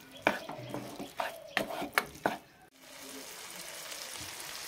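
Wooden spatula stirring a Schezwan egg-and-vegetable mixture in a non-stick pan, scraping and knocking against the pan about five times. From about three seconds in, a steady sizzle of the mixture frying.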